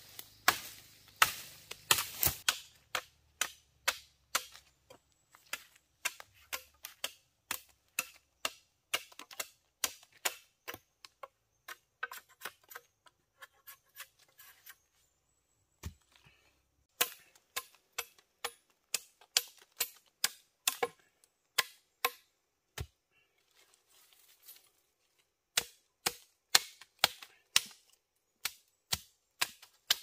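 A knife chopping wooden sticks to cut stakes: repeated sharp chops, often about two a second, in runs with short pauses.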